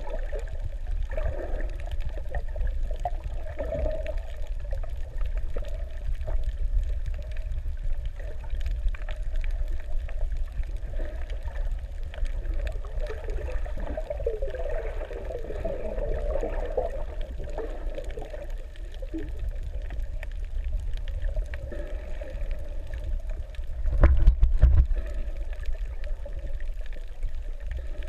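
Muffled underwater water noise heard through a waterproof camera housing: a steady low rumble with faint gurgling, and a louder low surge about 24 seconds in.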